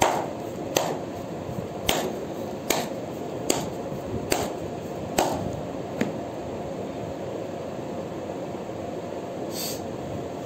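A deck of tarot cards being shuffled by hand: about eight sharp slaps of the cards, a little under one a second, stopping about six seconds in, followed by a steady faint hiss.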